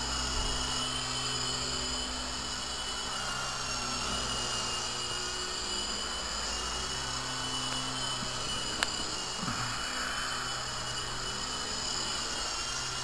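Small electric RC helicopter (Interceptor 052) in flight, its motors and rotors whirring steadily with small shifts in pitch. A single sharp click comes about nine seconds in.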